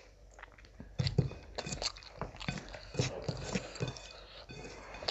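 Close-miked eating: wet chewing and mouth smacks in irregular short bursts, with fingers squishing rice and curry gravy on a metal plate.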